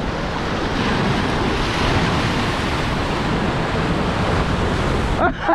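Ocean surf washing on the shore, with wind buffeting the microphone; the rush breaks off abruptly near the end.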